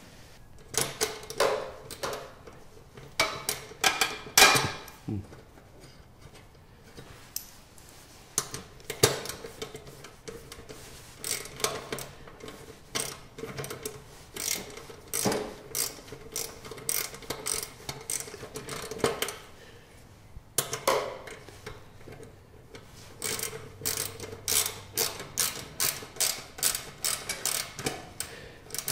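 Ratchet wrench clicking in short runs as fasteners on a small gasoline engine are tightened during reassembly, with a quicker run of clicks near the end.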